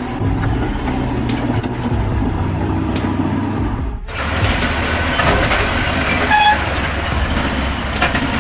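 Heavy construction machinery engine running with a steady low rumble; about four seconds in the sound cuts abruptly to a brighter, harsher machine noise.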